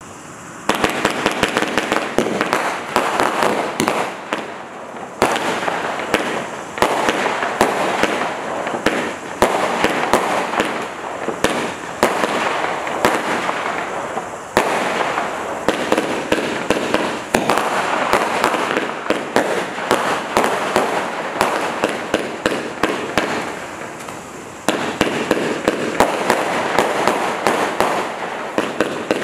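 Standard Fireworks Labyrinth single-ignition firework cake firing shot after shot in quick succession, with sharp reports and crackle. It starts about a second in, and new volleys start abruptly about 5, 15 and 25 seconds in.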